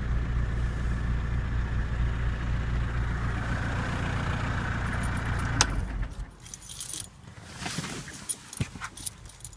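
Audi A4 1.9 TDI (BKE) diesel engine idling steadily, then shut off about six seconds in after a sharp click. Keys jangle with small clicks afterwards.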